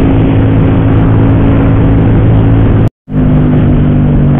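Honda PCX scooter's single-cylinder engine running steadily at cruising speed through an aftermarket racing exhaust, with rushing road and wind noise. The sound cuts out for a moment about three seconds in and comes back at a slightly different engine pitch.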